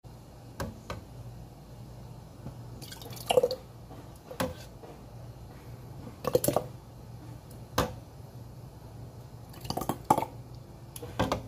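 Thick pear sauce spooned through a canning funnel into a glass pint jar: a series of short wet plops and knocks, about eight of them spread out, each a scoop landing in the jar.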